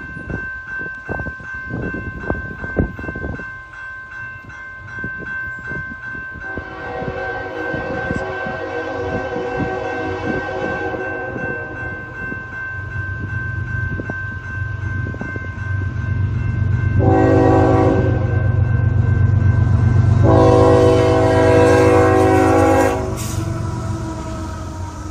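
A freight locomotive's air horn sounds a long blast, then a short one, then another long one, over the rising rumble of the approaching diesel engines. The horn is loudest on the last blast.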